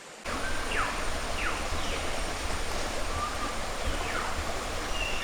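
A jungle stream rushing steadily, coming in suddenly about a quarter second in. A few short, falling whistled calls sound over the water.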